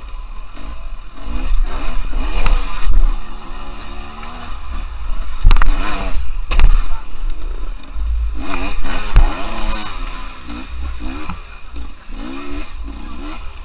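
Enduro dirt bike engine heard from on the bike, revving up and down in short bursts as it is ridden over rough ground. Heavy low rumble and a few sharp knocks come with it, loudest a few times in the middle.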